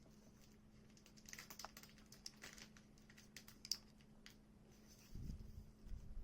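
Faint scattered clicks and taps, like small plastic parts being handled, with a low rumbling bump about five seconds in and another near the end, over a steady faint low hum.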